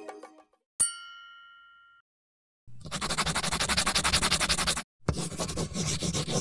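A single bright ding that rings out for about a second, then, after a short silence, scribbling on paper in two long stretches with a brief break between them: the drawing sound effect of a whiteboard animation.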